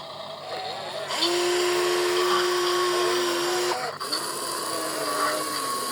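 Small electric motors of a radio-controlled construction toy whining in two runs. The first starts about a second in and holds a steady pitch for about two and a half seconds. After a brief break, the second starts about four seconds in, its pitch sagging slightly.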